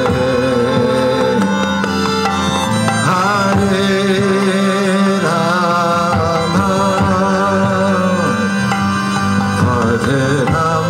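Devotional kirtan music: a steady held drone under a wavering melody, with hand-drum strokes and singing.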